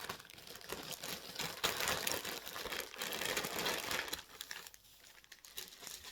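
Packaging crinkling and rustling as a cardigan is unwrapped by hand. The crackle is busy for about four seconds, then dies down.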